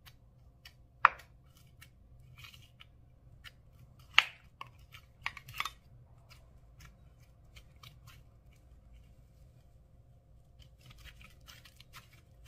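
Slime being pressed and peeled out of a round plastic tub and squished by hand: sharp sticky clicks and pops, the loudest about a second in and about four seconds in, then a run of small crackles near the end.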